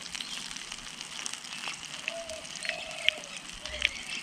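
Olive oil sizzling in a frying pan, a steady hiss with scattered crackles and pops. A faint wavering hum is heard about halfway through.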